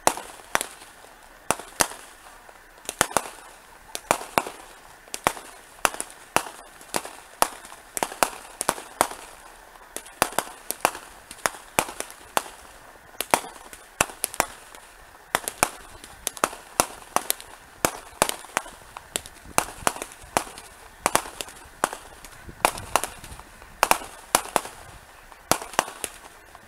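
Aerial fireworks shells bursting in a continuous stream of sharp bangs, about two a second at irregular spacing, some coming in quick clusters.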